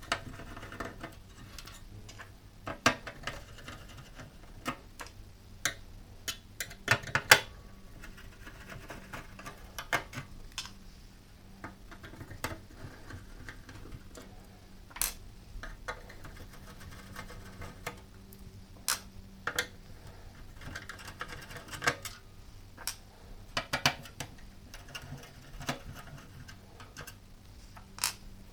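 Irregular small clicks and taps of hand tools and screws on a desktop PC's metal chassis as the motherboard is unfastened, with a faint steady hum underneath.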